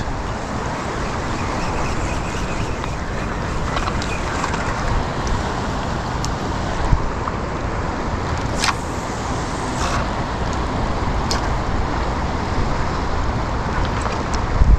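Fast-flowing river water rushing steadily, with a few sharp clicks scattered through it.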